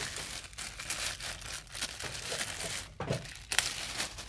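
Clear plastic bag crinkling and rustling as it is pulled off an electric wet polisher, with a louder patch of rustling about three seconds in.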